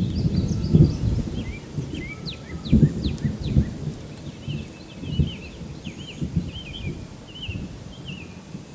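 Small birds chirping in short, quick rising and falling notes, growing into a busy run of twittering in the second half. Irregular low rumbles and bumps sound underneath, loudest in the first few seconds.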